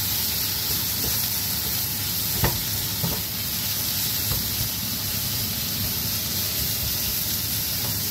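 Celery, egg and shrimp stir-frying in a nonstick pan: a steady sizzle, with a spatula scraping and clicking against the pan a few times, the sharpest knock about two and a half seconds in.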